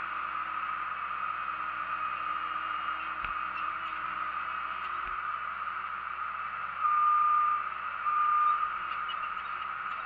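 Bobcat skid-steer loader running steadily with its bucket raised, heard from the operator's seat. Near the end come two loud, steady, high whines, the first under a second long and the second shorter.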